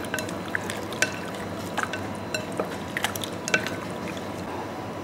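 Raw spareribs being stirred through a sticky black bean sauce in a ceramic bowl with wooden utensils: wet sounds of the sauce with light, irregular clicks of the wood against the bowl.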